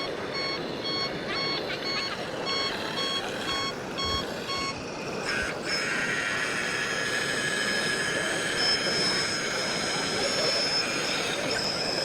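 A vehicle reversing alarm beeping in a steady run of short, evenly spaced beeps, which stops about five seconds in. It is likely the reverse-warning beeper of an RC truck or construction model. After that a steady whine with several tones, rising slightly at first, holds until near the end.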